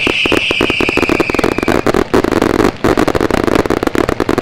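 Ground fireworks fountains firing: a high hiss that fades out about two seconds in, under a dense, irregular run of sharp crackling pops.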